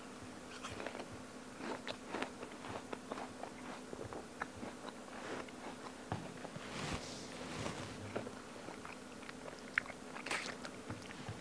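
A person eating a crisp raw apple: quiet crunchy chewing, with a sharper crunch of a fresh bite about ten seconds in.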